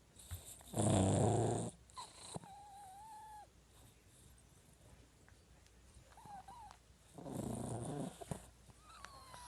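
A sleeping cat snoring: two snores, each about a second long and about six seconds apart, with faint thin whistling tones between them.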